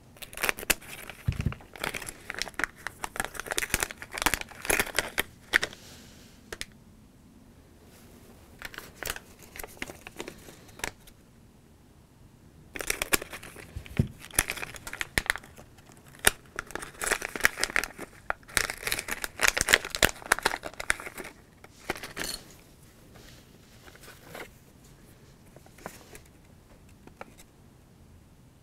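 LEGO Minifigures blind-bag packets crinkling as they are snipped open with scissors and handled, in bursts with short pauses between.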